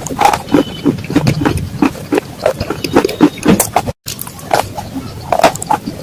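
Clay pot pieces crunching and crackling in a dense, irregular run of sharp cracks, broken by a sudden cut about four seconds in.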